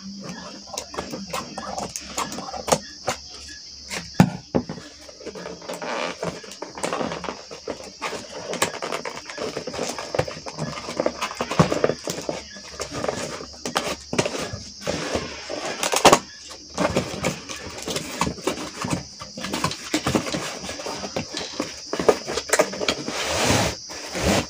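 Fingers picking and peeling clear packing tape off a cardboard box and handling the cardboard: irregular scratching, crinkling and tapping, over a steady high hiss. Near the end the box flap is pulled open.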